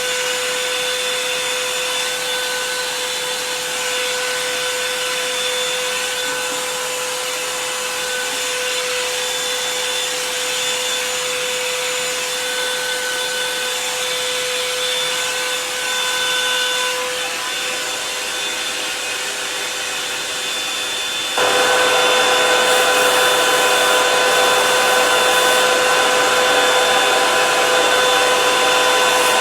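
Handheld hair dryer running steadily with a motor whine, switched to a louder, higher setting about three-quarters of the way through.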